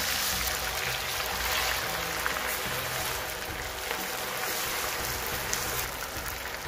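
Marinated chicken pieces deep-frying in hot oil in a karahi, the oil sizzling and bubbling in a steady hiss as more pieces are dropped in.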